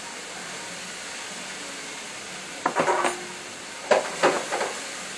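Cabbage frying in a pan with a steady sizzle. It is broken twice by short bursts of metal clatter, like a utensil stirring and knocking against the pan.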